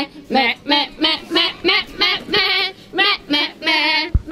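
A performer's voice imitating a bleating lamb: a quick run of short, wavering 'meh' calls, about three a second. A brief low thump near the end.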